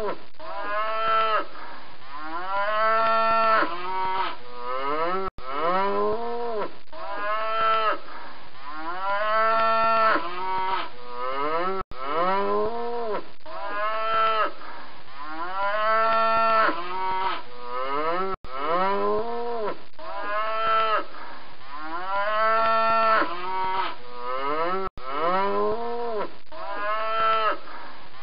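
Cattle mooing, several long calls with rising and falling pitch following close on one another. The same short stretch of mooing repeats over and over, broken by a brief gap about every six and a half seconds.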